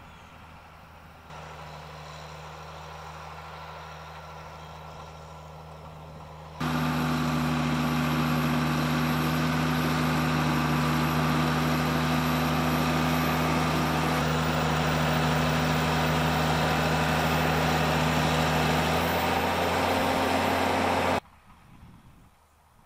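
A farm tractor engine running steadily. It gets louder in two steps, about a second in and more sharply about six and a half seconds in, then cuts off suddenly near the end.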